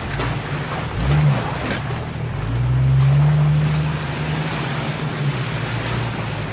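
Jeep Cherokee XJ engine heard from inside the cab, pulling slowly over rough off-road ground: a short rev about a second in, then a longer, louder pull on the throttle for about three seconds before it eases back.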